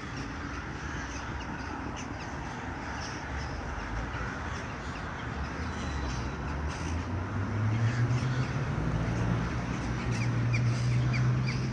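A flock of corvids cawing repeatedly over a busy outdoor background. About two-thirds of the way in, a low steady hum, such as a motor's, rises in pitch and becomes the loudest sound.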